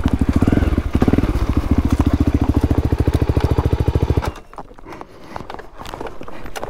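Voge 300 Rally's single-cylinder engine running at low revs with an even, rapid thumping pulse, which stops abruptly about four seconds in; after that only faint clicks and crackles remain.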